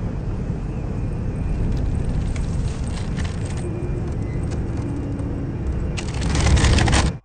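Loud, dense rumbling noise with scattered clicks, swelling about six seconds in and then cutting off suddenly.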